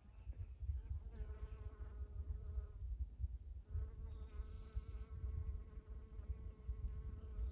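Honey bee buzzing close by, a steady hum that passes twice: briefly from about a second in, then again from nearly four seconds in on through the end. A low wind rumble runs underneath.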